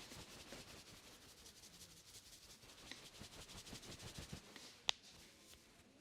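Hands rubbing and working the hair and scalp in a head massage, a faint, quick, even run of soft strokes. A single sharp click sounds near the end.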